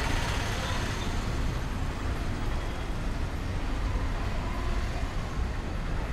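Steady street traffic noise: a continuous low rumble of passing motor vehicles on a busy city road.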